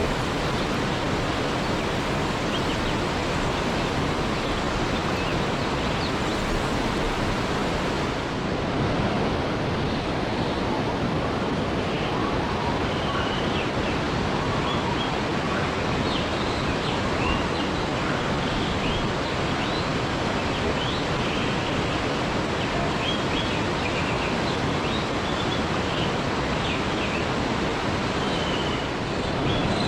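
Waterfall: water falling and splashing in a steady, even rush. From about a third of the way in, short high chirps come through over it.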